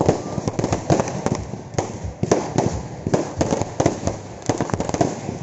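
A rapid, irregular series of sharp cracks and pops, several a second.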